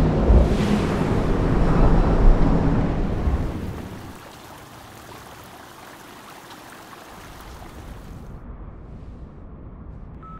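Heavy sea surf breaking against rocky cliffs, a loud rumbling wash of water that dies away about four seconds in, leaving a much quieter steady hiss.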